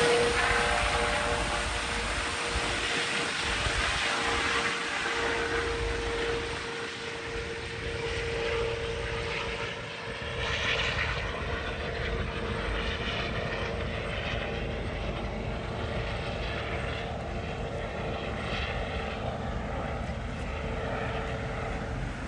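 Rescue helicopter flying away. Its rotor and turbine sound fades over the first few seconds, then holds at a steady distant level, with a steady whine throughout.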